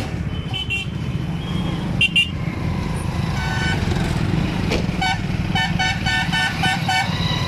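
Highway traffic with a steady low engine and road rumble, cut by short vehicle-horn toots. A quick double beep sounds twice early on, and near the end a horn is tapped in a rapid run of beeps, about three a second.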